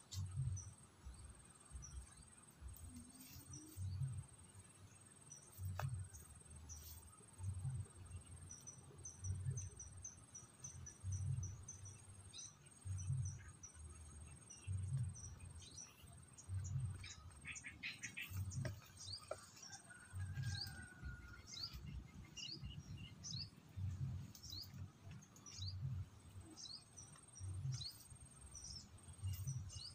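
Insects buzzing with a steady high whine, with many short, high bird chirps. Under them, a low, dull thump recurs about once a second.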